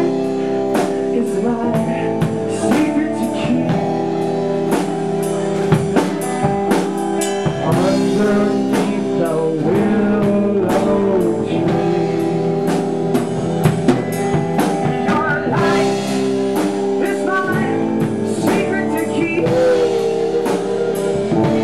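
Blues-rock band playing an instrumental stretch with drum kit and guitar, and a harmonica played into the vocal microphone with the hands cupped around it, its bending notes carrying over the band.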